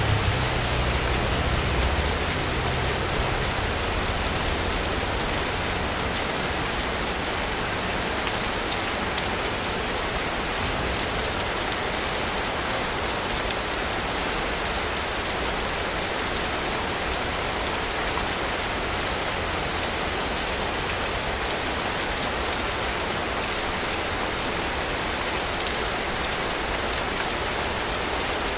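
Steady city rain falling in an even hiss. A low rumble at the start fades out within the first few seconds.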